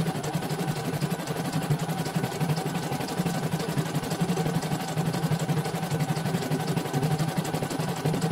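CNY portable computerised embroidery machine stitching a design: a steady run of rapid, even needle strokes over the hum of its motor.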